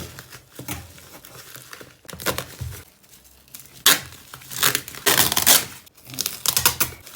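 Plastic bubble wrap and packaging crinkling and tearing as it is pulled apart by hand, in uneven bursts, loudest about four and five seconds in.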